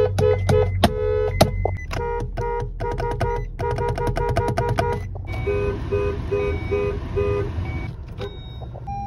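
Two-note car horns honked in rapid short taps. About five seconds in, the sound changes to another horn giving a steady series of short toots, two or three a second, over a hissing background.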